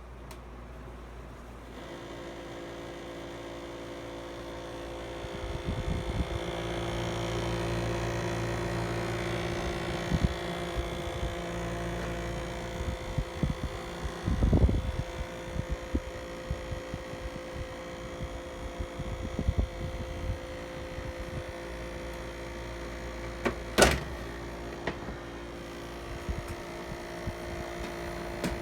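Haier JA-16R window air conditioner running with a steady hum that grows into a fuller drone about two seconds in, with irregular knocks and rattles throughout, a louder thump about halfway through and a sharp knock near the end. This is the abnormal noise of the new unit.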